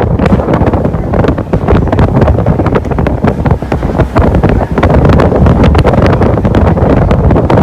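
Loud wind buffeting the microphone aboard a moving boat: a heavy, fluttering rush with many crackles, over the boat's running noise.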